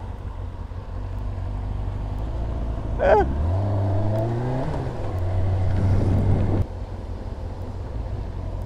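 Kawasaki ZX-6R's inline-four engine under way, pulling with a rising pitch about three and a half seconds in and holding a higher note before the throttle is shut suddenly a little past six seconds. A brief sharp sound comes just before the pull.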